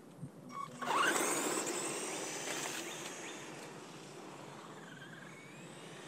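Bezgar 1/12-scale 4x4 RC truck, on its box-stock foam-filled tyres, launching about a second in: a sudden rising electric motor whine with tyre noise on asphalt, loudest at the launch and fading as the truck speeds away.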